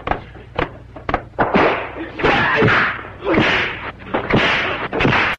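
Martial-arts film fight sound effects: a rapid series of sharp punch and kick impacts, with several longer noisy bursts between about one and a half and five seconds in. The sound cuts off suddenly at the end.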